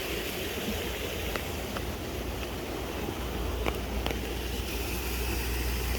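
Steady rush of running water, with wind rumbling on the microphone that grows stronger about halfway through and a few faint clicks.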